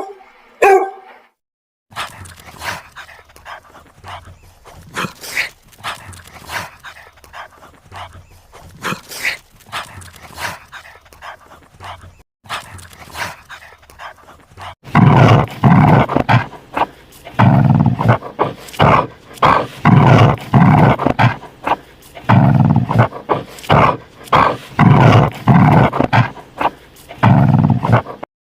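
Dog barking in a string of sound-effect clips: quieter, scattered barks at first, then loud barks repeated about once or twice a second from about halfway.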